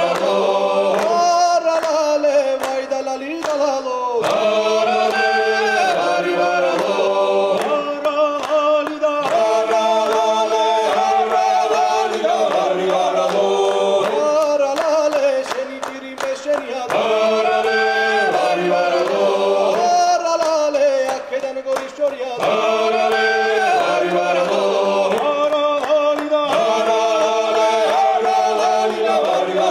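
Male choir singing a Georgian Kartlian dance song (satsekvao) a cappella, several voice parts moving over a held bass drone, with the singers clapping in time.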